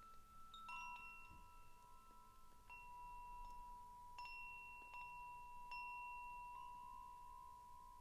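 Wind chime played gently: soft metallic notes struck about once a second, each one ringing on long enough to overlap the next.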